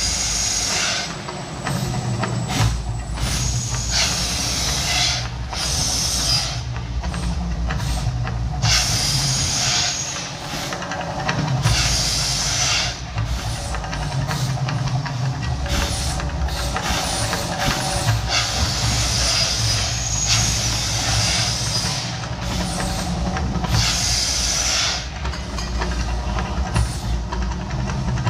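Mirage Volcano eruption show: gas flame jets fire in hissing bursts of a second or two, about every four seconds, over a continuous deep rumble.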